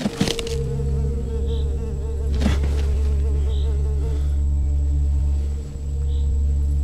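A swarm of flies buzzing loudly and steadily over a rotting carcass, a dense low drone. Short sharp noises sound at the very start and again about two and a half seconds in.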